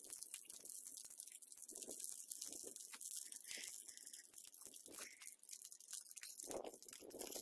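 Beer-battered fish pieces sizzling and crackling faintly in hot oil in a small pan on a gas canister stove, with a few duller sounds near the end.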